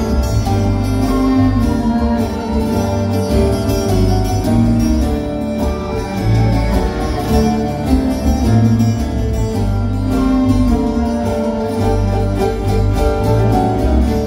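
Live band playing an instrumental passage of a Greek song: plucked guitar over a steady electric bass line, with no vocal.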